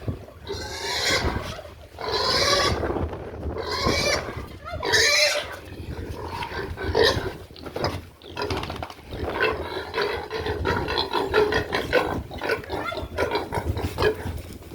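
Livestock calling: several drawn-out calls of about a second each, then a quicker run of short sounds.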